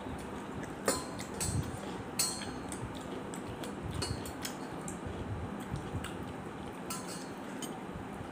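Fingers scraping and gathering rice on a metal plate while eating by hand, with a handful of short, sharp clinks and scrapes against the plate.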